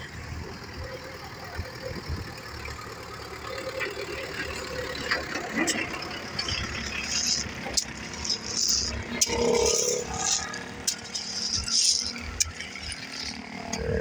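A Belarus 510 tractor's diesel engine runs underneath, while crushed stone clatters and scrapes as it is raked and spread by hand. The sharp stony clicks and scrapes come thicker and louder in the second half.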